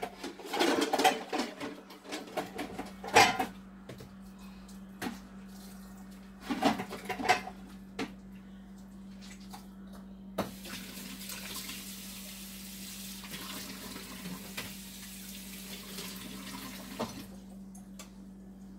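A few knocks and clatters of dishes, then a kitchen tap running for about six seconds and shutting off abruptly, over a steady low hum.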